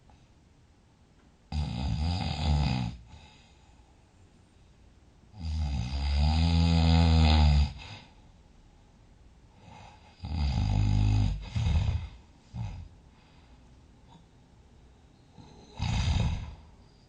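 A sleeping person snoring loudly: four snores about four to five seconds apart, each a rough, rattling drone, the second the longest and loudest.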